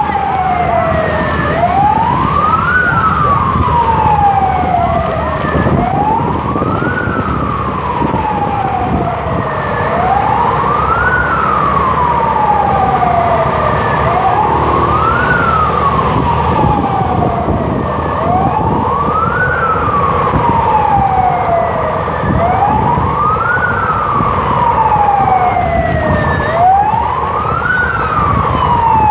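Ambulance siren on a slow wail: each cycle climbs quickly and then falls slowly, about one every four seconds. Motorcycle engine and wind noise run beneath it.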